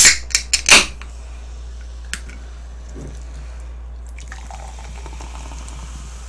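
An aluminium can of Korean lemon-lime soda (cider) cracked open, with a few sharp loud clicks in the first second. From about four seconds in, the soda is poured from the can into a glass, faint and steady.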